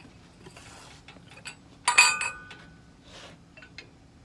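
Metal hand tools and steel compressor parts clinking as a valve is taken off a high-pressure air compressor: one loud ringing clank about two seconds in, with a few lighter clicks around it, over a faint steady hum.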